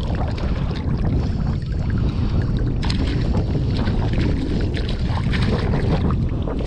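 Steady wind rumble on the microphone over water splashing and lapping around the wading angler.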